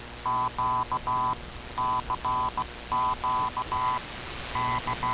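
Morse code sent as a tone near 1 kHz, keyed in long and short elements in groups, coming through a weak, distorted shortwave AM broadcast over a steady hiss.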